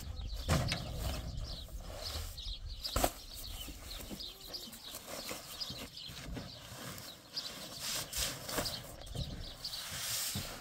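Paper cement sacks being handled and loaded onto a pickup truck's metal bed: rustling and scraping of the sacks, with two louder thuds in the first three seconds as sacks land.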